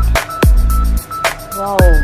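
Electronic background music with a beat: deep bass drum hits that drop in pitch, sharp percussion and a stepping synth melody, no singing.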